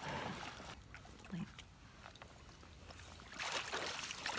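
Black retriever wading through shallow marsh water with a retrieved duck: quiet sloshing and splashing, louder from about three and a half seconds in.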